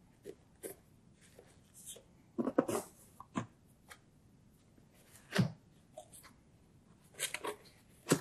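Cardboard packaging being handled: a printed card sleeve scraping and rustling as it slides off a corrugated cardboard box, a single thud about five seconds in as the box is set down on the table, then more rustling as the lid flap is lifted near the end.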